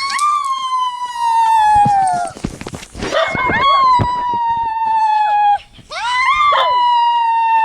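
Dog howling: three long, drawn-out howls, each swooping up at the start and then sliding slowly down in pitch, with short breaks between them.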